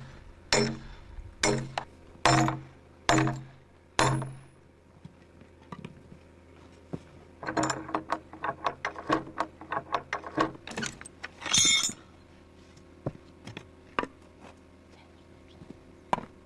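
Five ringing metal-on-metal blows about 0.8 s apart, driving the pointed hook of a log-skidding chain into the end of a log. Then, from about halfway through, a run of rattling chain links and clinks.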